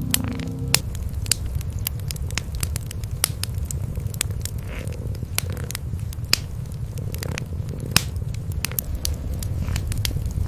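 Wood fire in a fireplace crackling, with many sharp pops scattered through, over a steady low rumble of cats purring.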